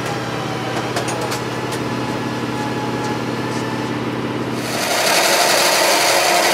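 A steady low machine hum, then about two-thirds of the way through a hand-held pneumatic air tool starts up with a loud, hissing run as it works against an aircraft's sheet-metal skin, stopping at the end.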